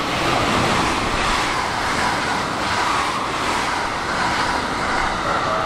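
A Rakuraku Harima limited-express electric train passing close at speed. A steady rush of wheels on rail and moving air builds as it arrives, then holds.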